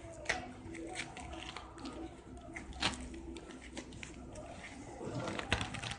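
Hands fitting padded dividers into a nylon drone backpack: scattered fabric rustles, scrapes and soft taps.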